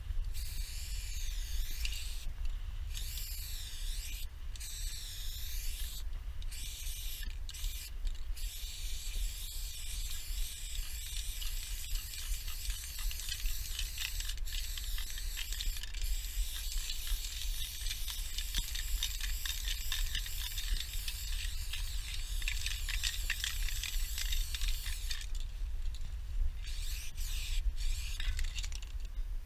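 Aerosol spray-paint can hissing in long sprays, broken by a few brief pauses early on and a longer pause near the end before one more spray. A steady low rumble runs underneath.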